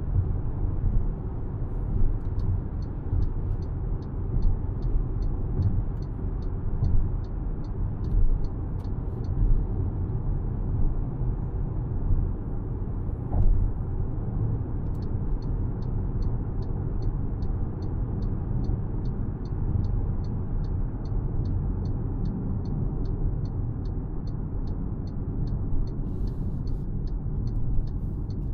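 2025 MG HS driving, a steady low rumble of engine and road noise. A regular light ticking, about three ticks a second, runs for several seconds twice.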